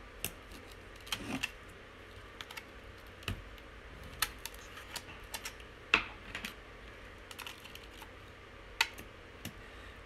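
Scattered small clicks and taps of plastic and metal parts being handled inside an opened Dell Inspiron 11 laptop as a replacement DC power jack cable is fitted into place. The clicks come irregularly, the sharpest about six seconds in and another near nine seconds.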